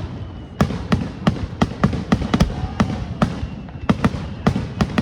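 Fireworks display: aerial shells bursting in a rapid, uneven series of sharp bangs, about three or four a second.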